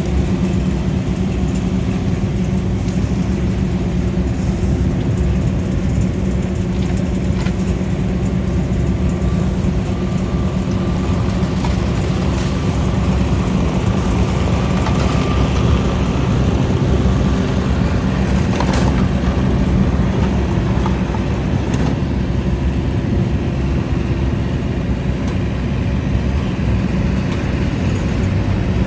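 Heavy machinery running steadily: a mini skid steer's engine together with a brush chipper's engine. A few short knocks and clanks stand out over the drone.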